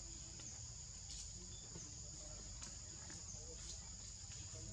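Steady, high-pitched chorus of insects, with a few faint ticks through it.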